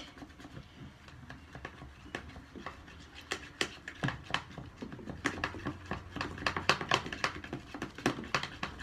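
Sticky slime mixture of glue, shaving cream and paint being stirred, giving irregular wet clicks and pops that come faster and louder in the second half.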